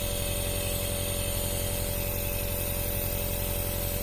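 Electric nebulizer's compressor running steadily, a constant buzzing hum with hiss as it turns liquid medicine into mist for inhalation.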